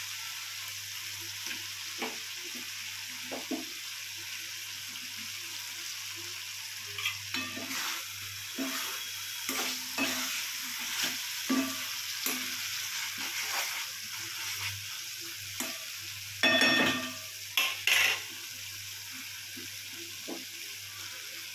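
Fish and onion-tomato masala sizzling in hot mustard oil in a pan, a steady hiss. From about a third of the way in, a spatula stirs and scrapes through the masala, with the loudest scrapes about three-quarters of the way through.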